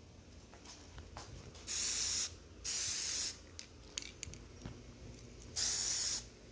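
Aerosol spray paint can sprayed in three short bursts of about half a second each, the first two close together and the third a few seconds later, with a few faint clicks between.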